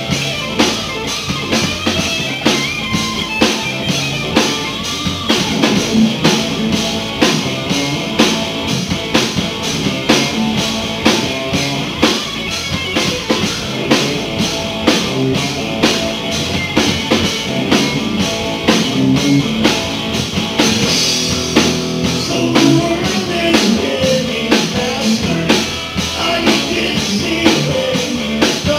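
Live blues-rock band playing: electric guitar, bass and drum kit, with a steady drum beat.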